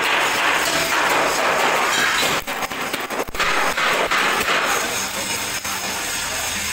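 Hammer blows on the sheet-steel drum of a concrete mixer, a few sharp strikes about halfway through, over the steady crackling hiss of arc welding.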